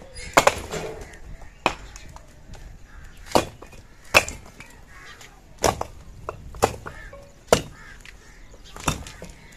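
Bricks dropped from the top of a wall hitting the ground and the pile of broken bricks below: about eight sharp knocks at uneven intervals, each a second or so apart.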